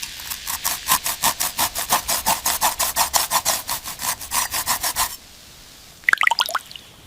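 Rust being scrubbed off a pair of scissors: rapid back-and-forth scraping strokes, about six a second, which stop suddenly about five seconds in. A short cluster of sharp blips follows near the end.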